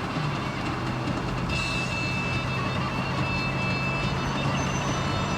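Steady vehicle running noise: a low engine hum under a continuous rumble, with a thin high whine joining about a second and a half in.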